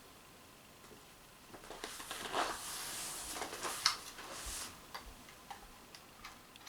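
Quiet small clicks and light handling noises from an Umarex TPX50 CO2 pistol being readied between shots. A sharp, loud shot begins at the very end.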